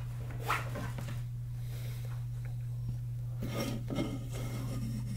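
Rubbing and scraping of hands handling an aluminium drink can, fingers working at its top and tab, a soft scrape about half a second in and a few more near the end, over a steady low electrical hum.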